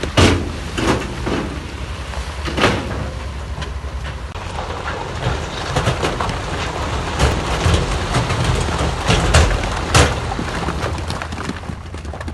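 Heavy earthmoving machinery running with a steady low diesel hum, punctuated by irregular loud clanks and knocks of metal and rock. The sharpest knocks come just after the start and about ten seconds in.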